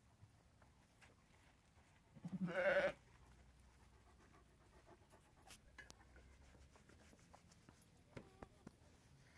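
A sheep bleats once about two seconds in: a loud, wavering bleat lasting under a second.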